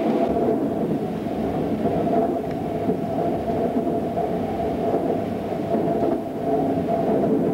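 Passenger train running at speed, heard from inside the carriage: a steady rumble of wheels on the rails with a constant hum.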